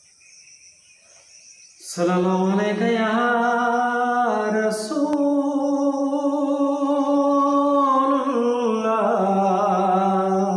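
A man's unaccompanied voice humming a wordless opening to a naat, starting about two seconds in, with long held notes that step from one pitch to the next.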